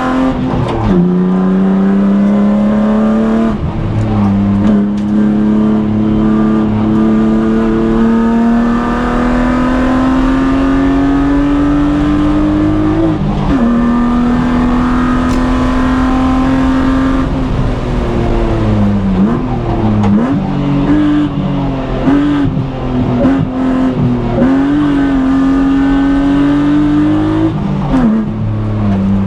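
BMW E36 M3's straight-six engine under hard acceleration, its pitch climbing and dropping sharply at each upshift, twice. After a steady stretch it falls and wavers as the car slows through a corner, then climbs again to another shift near the end.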